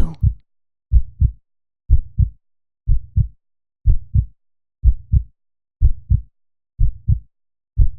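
Heartbeat sound effect: a steady lub-dub, each beat a pair of low thumps close together, about one beat a second, nine beats in all.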